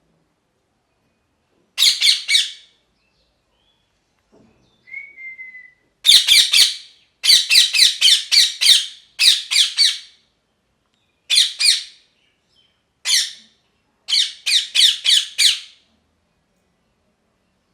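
Rose-ringed (ringneck) parakeet screeching: loud, harsh calls in quick runs of three to five, repeated in several groups with short pauses. A soft, short whistled note comes about five seconds in.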